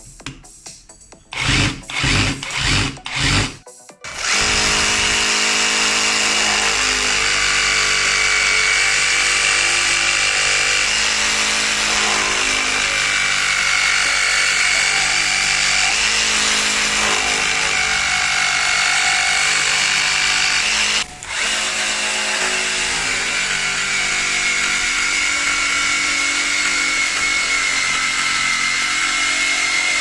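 Mivon cordless reciprocating saw (a multi-tool drill body with a reciprocating-saw head) running steadily as it cuts through a wooden board, stopping for a moment about 21 seconds in and then cutting again.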